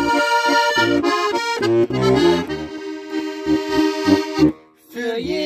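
Accordion playing an instrumental introduction: sustained chords over a pulsing bass, with a brief break near the end.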